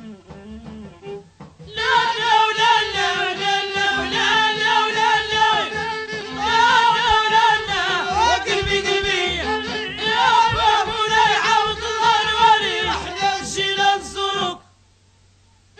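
Moroccan song in Middle Eastern style: after a soft opening, a loud passage with a wavering, ornamented lead melody over accompaniment comes in about two seconds in and cuts off suddenly about a second before the end.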